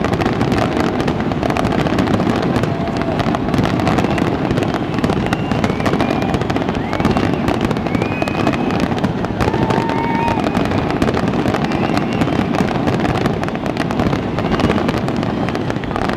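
Large aerial fireworks display: a dense, unbroken barrage of shell bursts and crackling, with a few short high whistles heard over it.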